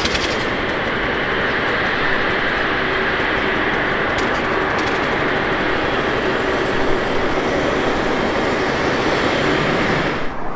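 Turbofan engines of a taxiing Saudia Boeing 777, a steady loud rushing hiss with a low hum beneath it. It cuts off suddenly near the end.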